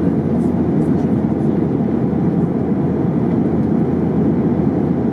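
Steady cabin noise of a Boeing 737-800 airliner in flight: an even, unbroken low rush of airflow and its CFM56 jet engines.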